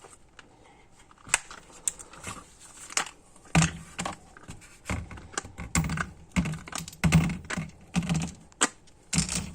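Go-Thru sockets and their plastic holder being handled: irregular sharp clicks and clacks, sparse at first and much busier from about three and a half seconds in, some with a dull knock.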